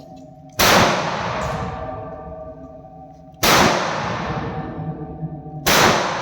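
Three gunshots from a firearm at a shooting range, a few seconds apart, each with a long echoing tail that fades slowly.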